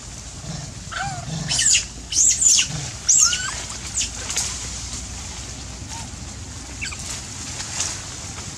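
Macaques screeching: a burst of shrill squeals and screams about one to three and a half seconds in, followed by a few fainter short calls.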